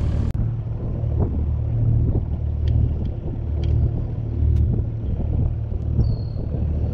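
Fishing boat's motor running steadily at low speed, a constant low rumble.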